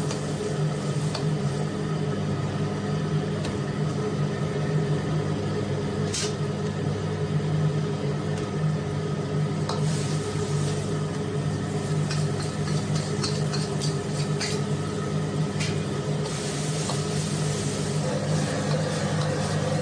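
Tomatoes sizzling in a wok over a steady low hum from the wok stove, with the metal ladle scraping and knocking against the wok several times. Near the end the sizzling grows louder as the scrambled egg goes in.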